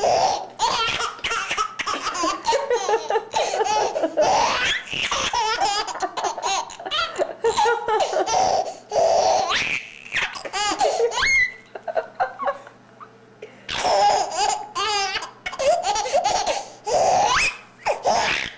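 Baby laughing hard in long runs of giggles and squeals, breaking off for a couple of seconds past the middle and then starting again.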